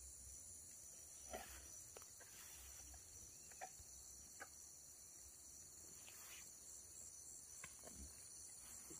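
Faint, steady high-pitched chorus of insects shrilling in the vegetation, with a few faint, brief sounds scattered through it.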